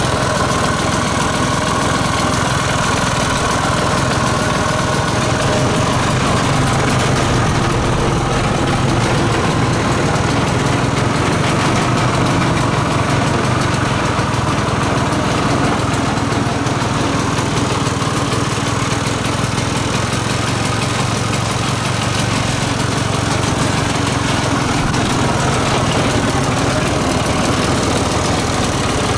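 Piaggio Ape 50's small two-stroke single-cylinder engine idling steadily.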